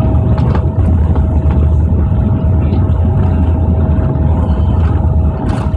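Cabin noise of a Boeing 767-400ER on arrival: a loud, steady low rumble from the engines and airframe, with a steady whine above it and a few light rattles of cabin fittings.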